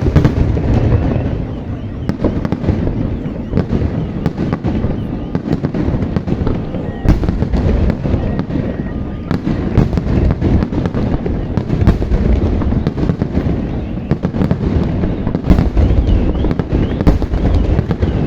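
Fireworks display: a continuous barrage of deep booms and sharp bangs overlapping with crackling, with no break.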